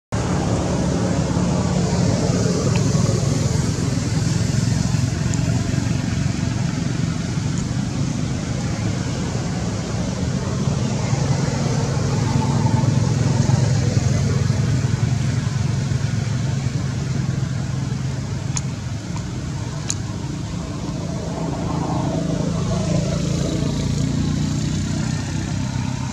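A steady low rumble of a running engine, with background outdoor noise.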